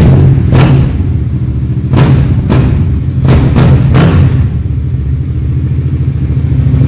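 Yamaha MT-07's parallel-twin engine running loud through its aftermarket exhaust. It is blipped sharply with the throttle several times in the first four seconds, then settles to a steady idle.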